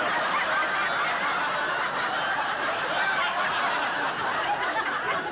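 Studio audience laughing, one long, sustained laugh from many voices.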